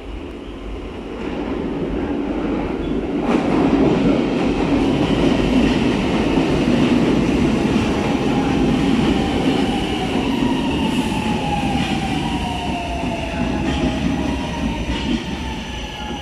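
Milan Metro Line 2 Leonardo train pulling into an underground station: the rumble of wheels on rail builds over the first few seconds and stays loud, then from about ten seconds in a whine from the electric drive falls in pitch as the train slows to a stop.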